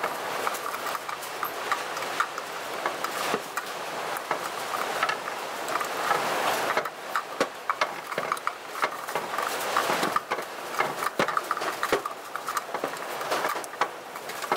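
Hands working the wiring inside a sheet-metal electrical box: steady rustling and handling noise with many small clicks and ticks, turning into more separate, sharper clicks about halfway through.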